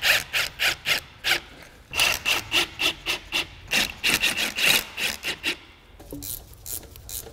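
A hand ratchet being worked back and forth on the bellhousing bolts, drawing the transmission up onto a Honda K-series engine: quick rasping, clicking strokes, about four a second, in three runs with short pauses.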